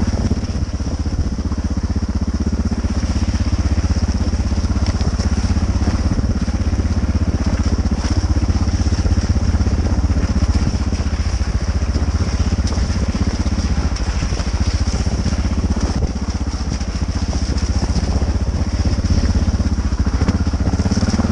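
Single-cylinder dual-sport motorcycle engine running steadily while the bike is ridden along a rough muddy trail, with no big revving.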